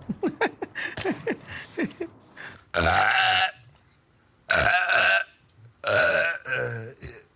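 A person burping: a run of short, quick sounds, then three long, loud burps about a second and a half apart.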